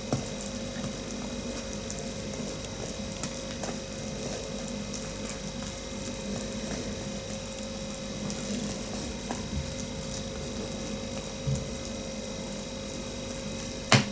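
A metal spoon scooping milk-soaked corn sticks in a plastic bowl, with faint small scrapes and clicks over a steady low hum. A dull thump comes about two-thirds of the way through, and a sharp click of the spoon near the end.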